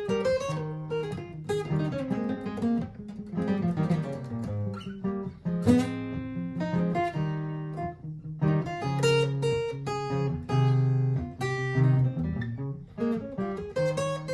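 Martin GPCPA4 acoustic guitar improvising over a looped guitar part, mixing picked single notes with strummed chords, several notes sounding at once.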